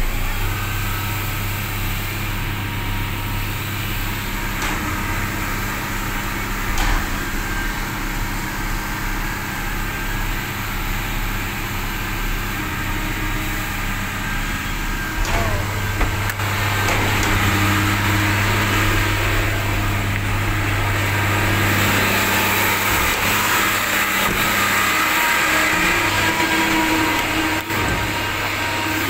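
Garbage truck's diesel engine running steadily, getting louder about sixteen seconds in and staying there.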